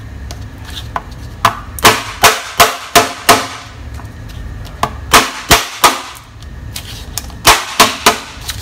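A large kitchen knife chopping lemongrass stalks into lengths on a plastic cutting board: three runs of sharp chops, about six, then four, then three, at roughly three strokes a second.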